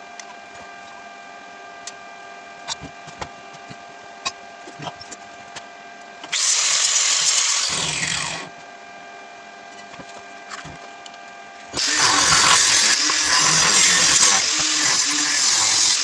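A handheld power tool working metal runs in two bursts. The first lasts about two seconds and winds down as it stops. The second starts about twelve seconds in, is louder, and carries on. Before the first burst there is a steady hum with scattered small clicks.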